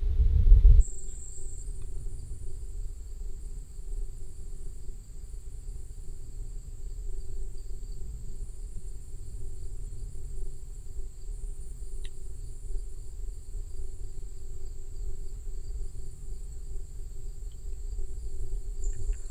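Steady high-pitched chorus of insects trilling without a break, over a low rumble. A louder low rumble stops about a second in, as the insect sound comes up.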